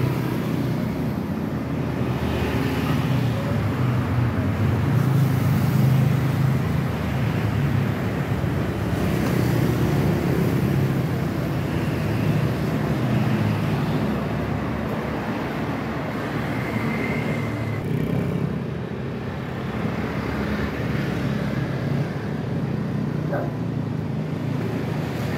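Road traffic going by: a steady low rumble of passing cars and motorbikes that swells twice as vehicles pass close.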